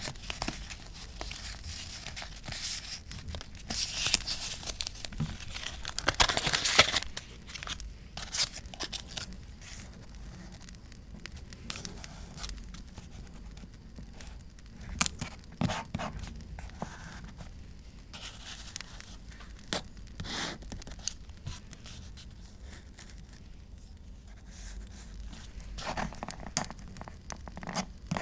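Paper being torn and crinkled by hand for journal collage, in irregular bursts of tearing and rustling with small clicks in between.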